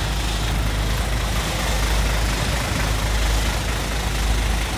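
Hino coach's diesel engine idling steadily, a constant low hum.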